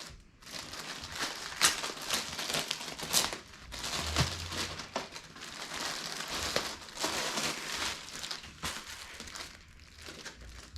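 Packaging crinkling and rustling in irregular bursts as a canvas tote bag is unwrapped and handled.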